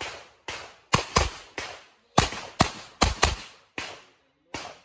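A revolver firing a rapid string of about ten shots, unevenly spaced, some in quick pairs. Each shot is a sharp crack with a short echoing tail.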